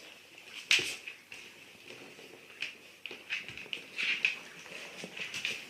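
A mother dog and her puppies playing: a string of short, scattered scuffles and small animal noises.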